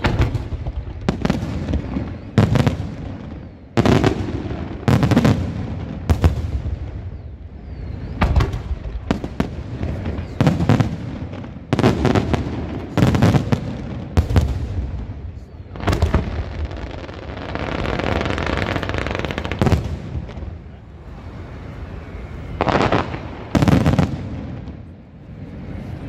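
Aerial firework shells bursting in a long series of loud bangs, roughly one a second. About two-thirds of the way through, the bangs give way to a few seconds of steady noise before two more bangs.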